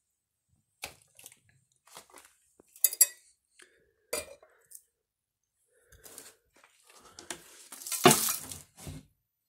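Broken toilet fragments being picked up and set down among rubble: scattered clinks and knocks of hard pieces. Near the end a longer, louder scraping clatter as a toilet seat is lifted from the debris.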